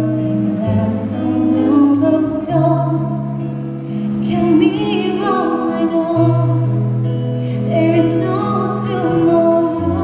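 A woman singing a slow song live into a handheld microphone, over an accompaniment of long held low notes.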